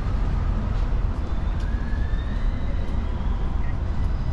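Busy city street traffic: a steady low rumble of passing cars, with a faint high tone gliding upward about a second in.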